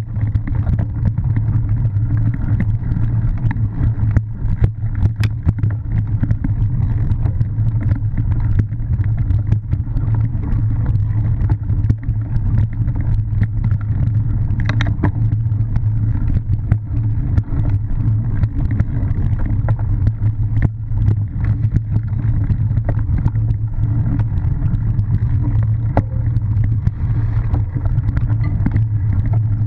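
Cyclocross bike riding fast over bumpy grass and dirt, heard from a handlebar-mounted camera: a steady low rumble of wind and vibration, with many small knocks and rattles as the bike hits bumps.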